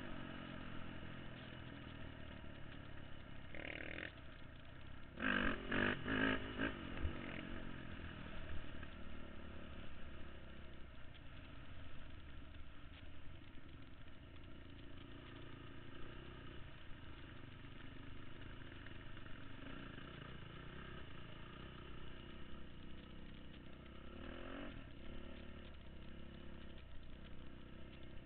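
Off-road vehicle engine running steadily on a dirt trail ride, revving up in short bursts about four and six seconds in and again briefly near the end.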